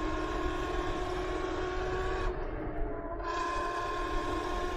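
Electric dirt bike motor whining at a steady pitch while riding, over wind rumble on the microphone. The high hiss drops away for about a second midway.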